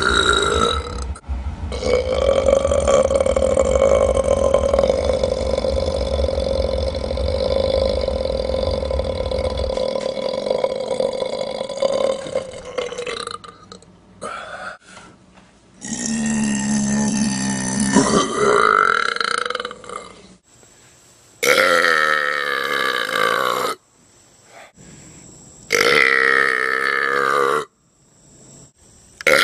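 A series of belches: one very long belch held for about twelve seconds, then one that rises in pitch, then shorter belches of about two seconds each that cut in and out sharply, one after another.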